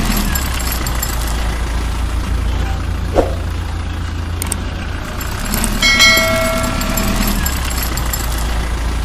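A vehicle engine sound effect idling steadily, laid over silent toy vehicles. About three seconds in there is a short sweep, and about six seconds in a horn-like tone sounds for about a second.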